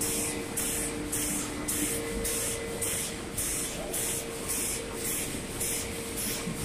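Steady noise of factory machinery: a hiss that pulses about twice a second, over a low steady hum tone.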